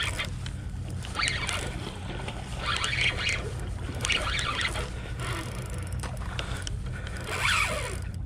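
Spinning reel sounding in short bursts every second or so while a hooked chum salmon pulls hard against a tightly set drag, over a steady low rumble.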